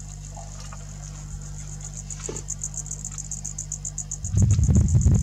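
Insects chirring in a high-pitched, fast, even pulse over a steady low hum. A little over four seconds in, a loud low rumble cuts in suddenly and becomes the loudest sound.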